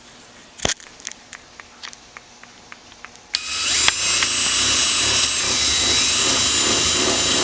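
Power drill drilling holes in a plastic intake adapter piece: a sharp click and a run of light ticks, then the drill runs steadily for about four seconds from around the middle, its whine dipping briefly as it bites.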